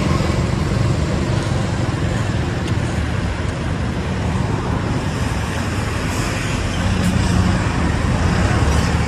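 Steady rumble of motor vehicle traffic, with a low engine hum.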